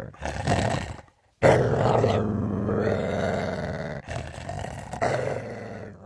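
Dog growling, a low, continuous warning growl in several long stretches with a short pause about a second in.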